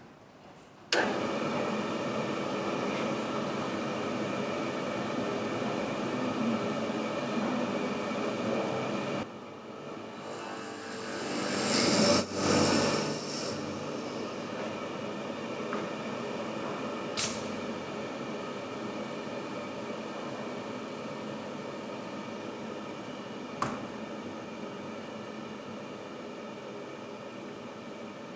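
Woodworking long-hole boring machine starting up about a second in and running steadily with a humming note. Its sound changes around nine seconds in and swells louder around twelve seconds in, with two sharp clicks later on.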